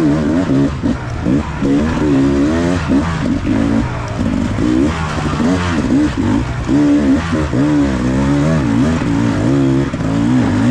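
Off-road motorcycle engine revving as the bike is ridden along a dirt trail, its pitch rising and falling over and over with the throttle.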